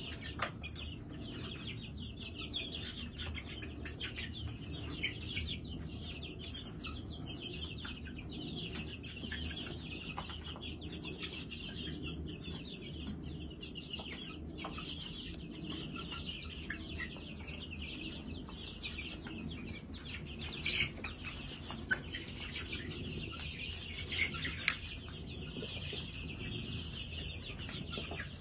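A large flock of young New Hampshire chicks peeping continuously, many high, short calls overlapping into a steady chorus.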